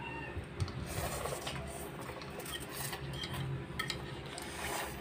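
Slurping of ramen noodles and broth, in several short hissing slurps, with a few light clicks of chopsticks and spoons against bowls.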